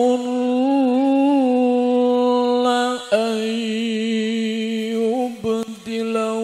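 A man reciting the Qur'an in melodic tilawah style into a microphone, holding long ornamented notes with short pauses about three and five and a half seconds in.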